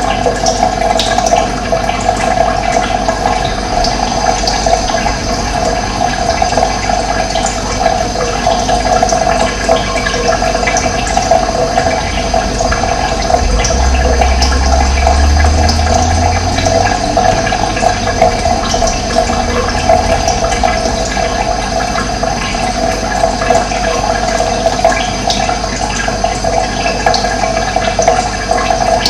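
Running water flowing steadily, with a deep low rumble from a little under halfway through to about two-thirds of the way.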